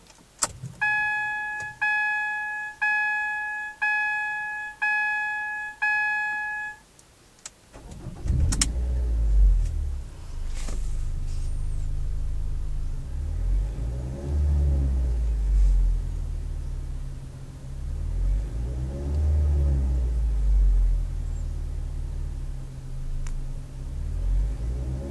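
A Ford Focus's dashboard chime sounds six times, about once a second. About eight seconds in, the engine cranks, catches and settles into an idle, heard from inside the cabin. The engine is then revved up and let back down three times.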